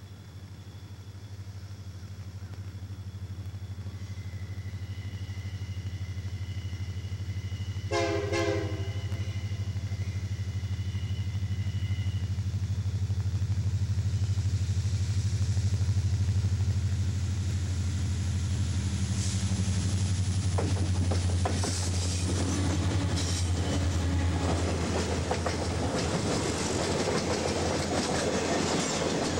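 Freight train's diesel locomotives approaching, their low engine drone growing steadily louder. A brief pitched sound comes about eight seconds in. From about twenty seconds in, the cars roll past with wheels clicking over the rail joints.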